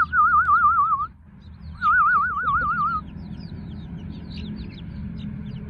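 Chicks peeping continuously with many short, high cheeps, while a loud warbling whistle, rapidly wavering in pitch, sounds twice for about a second each: once at the start and again about two seconds in.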